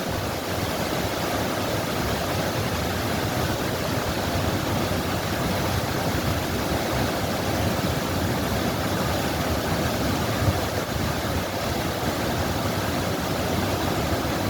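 Running water rushing steadily, a continuous even wash of sound.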